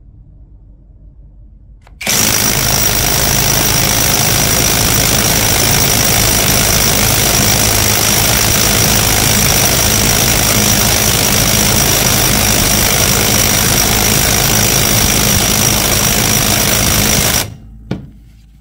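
Dowox cordless impact wrench hammering steadily under load on a Skidmore bolt tension tester. It starts about two seconds in, runs for about fifteen seconds with a constant high whine over the rattling blows, then stops suddenly, with one short blip just after.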